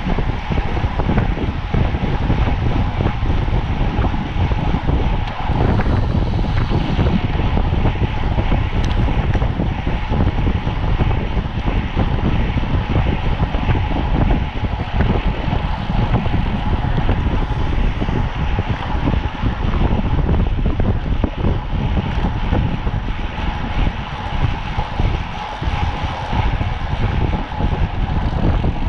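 Heavy wind buffeting the microphone of a camera riding on a racing bicycle at speed, with a steady hum running through it.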